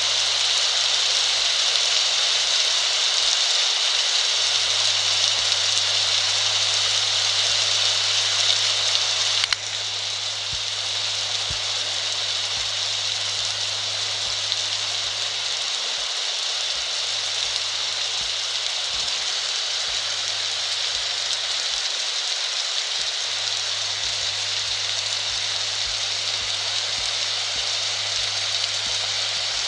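Heavy rain pouring down, a steady hiss that suddenly drops a little in level about nine and a half seconds in and then carries on.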